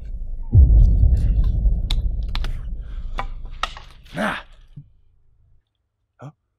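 A low rumble that cuts in suddenly about half a second in and fades away over about four seconds, with scattered sharp clicks and a short vocal sound near the end of it.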